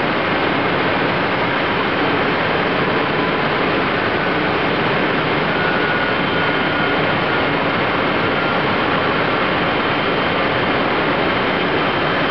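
Steady machinery noise of a beet-sugar centrifugal during plowing out, as the plow cuts the white sugar cake off the wall of the turning basket after the syrup has been spun off.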